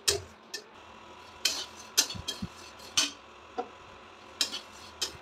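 Steel spatula scraping and clinking against a steel kadhai while stirring dry flattened rice (poha) as it roasts, in irregular strokes roughly every half second to second, with the light rustle of the flakes.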